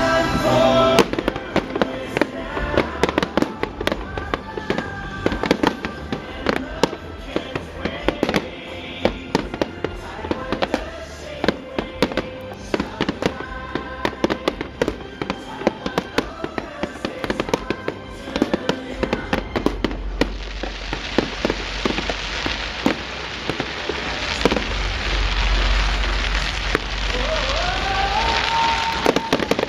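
Fireworks bursting in a rapid series of sharp bangs and pops, with music playing underneath. About two-thirds of the way through, the bursts thicken into a dense crackling hiss with a low rumble, as in a finale-style barrage.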